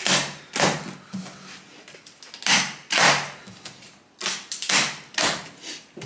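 Tensioned plastic packing straps around a cardboard box being cut with a hook cutter, each snapping loose and slapping against the cardboard: a string of sharp snaps and thuds, several of them spread over a few seconds.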